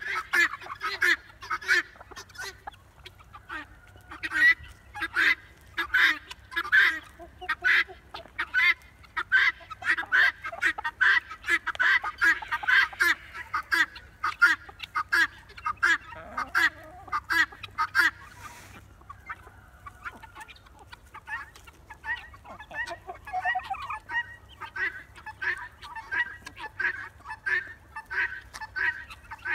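Guinea fowl calling loudly, short calls repeated in quick succession. The calls let up briefly a little over halfway through, then start again.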